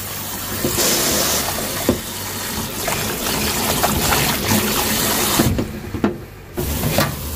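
Tap water running into a sink as bok choy leaves are rinsed under it, with a few light knocks from handling. The flow drops away for about a second about five and a half seconds in, then comes back.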